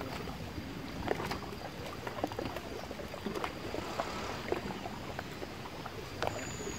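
Small irregular splashes and light knocks of water and gear around a kayak, over a low steady background.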